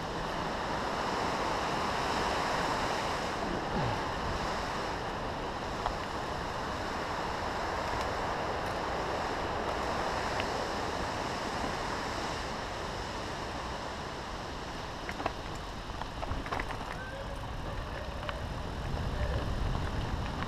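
Steady rushing noise from riding a mountain bike along a dirt forest trail: wind on the microphone mixed with tyres rolling over dirt. A few sharp rattles from bumps come in the last few seconds.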